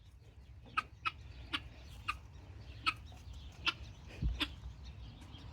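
Domestic hen clucking: about seven short, separate clucks at uneven intervals.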